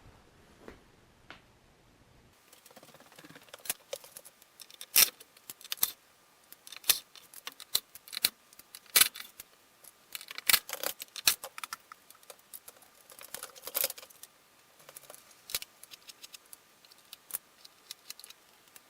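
Irregular sharp clicks and knocks of small hard objects being handled, starting about two seconds in, coming in clusters with short pauses.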